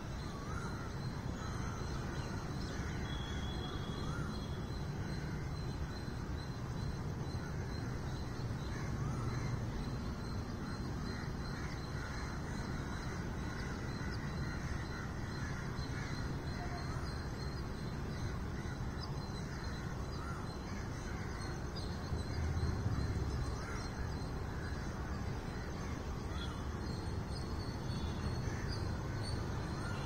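Birds calling, with crow-like caws, over a steady low hum of city traffic. The hum swells briefly about three-quarters of the way through.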